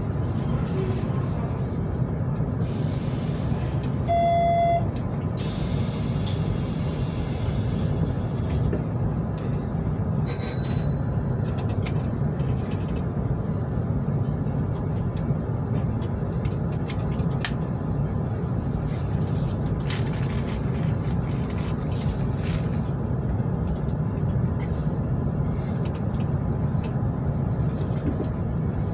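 Hanshin 9300 series electric train running steadily, a low continuous rumble with scattered clicks. A short beep sounds about four seconds in.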